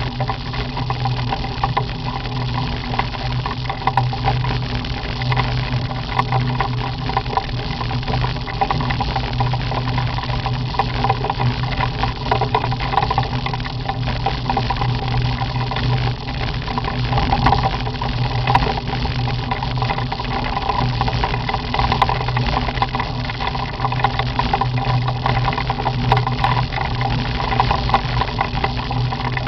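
Motorcycle engine running steadily at cruising speed, heard from the sidecar, with rattling and scattered small clicks of gravel under the tyres.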